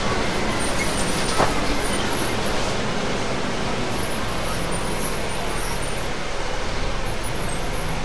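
Steady engine and road noise inside a moving bus, heard from the middle of the passenger cabin, with a short knock about a second and a half in.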